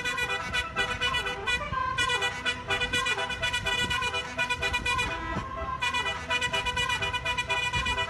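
Basuri telolet musical horn playing a quick melody of short, pitched horn notes, with a brief pause about five seconds in.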